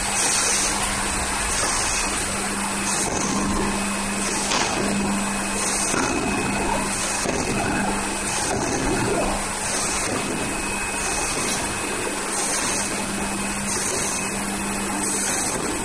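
Automatic bottle screen printing machine running: a steady mechanical whir with a low hum, and a short high hiss that repeats about every one and a half seconds as the machine cycles.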